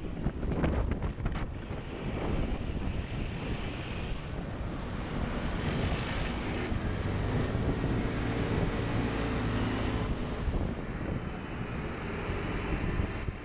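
Wind buffeting a GoPro's microphone on a moving scooter, over the scooter's small engine running and surrounding traffic, with a few jolts in the first second or two.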